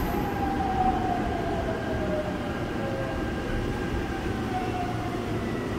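Seoul Subway Line 5 train braking as it pulls into a station, heard from inside the car: a low rumble from the running train, with a whine that glides down in pitch as it slows.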